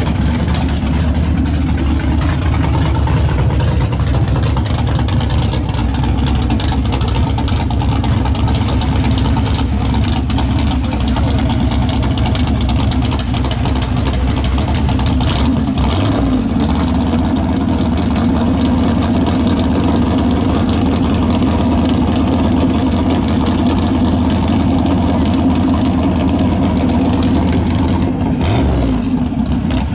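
Engine of a nitrous drag pickup truck idling loudly and steadily, its note shifting about sixteen seconds in and rising briefly in a short rev near the end.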